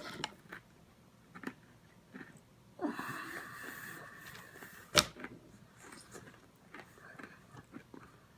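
A person eating rock-hard stale pretzels: scattered small mouth and chewing clicks, one long wheezing breath out about three seconds in, and a single sharp knock about five seconds in.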